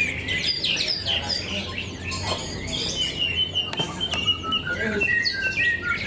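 Several caged green leafbirds (cucak ijo) singing against each other at once: a dense overlap of chirps, whistles and trills. In the middle comes a run of quick repeated notes, and near the end a series of short notes stepping down in pitch.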